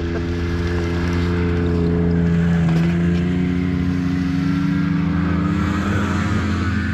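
Snowmobile engines passing close by, the sound building to its loudest about three seconds in, where the engine pitch drops as the sled goes past.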